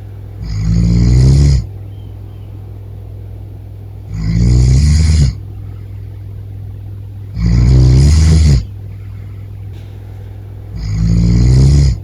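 A sleeping roommate snoring loudly: four long snores about three and a half seconds apart, each a little over a second long and cutting off sharply, over a steady low hum.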